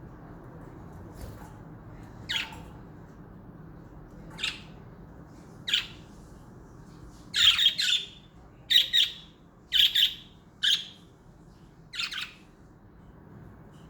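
Pet budgerigars giving short, sharp squawking calls, one every second or two at first and then in a quick run of several calls through the middle of the stretch.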